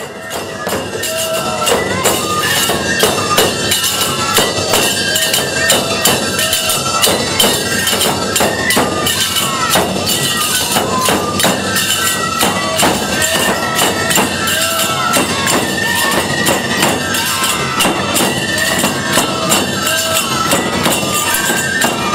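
Nebuta festival music (nebuta-bayashi): shrill bamboo flutes playing a gliding, ornamented melody over a fast, steady clatter of hand cymbals and drums. It fades in over the first couple of seconds, then stays loud and steady.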